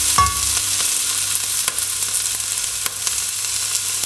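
Chopped root vegetables and onion sizzling as they fry in a hot pot, stirred with a silicone spatula, with a few light clicks from the stirring.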